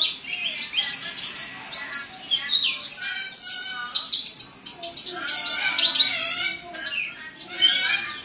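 Kolibri ninja sunbird song: a fast, unbroken run of high chirps, short pitch glides and trills.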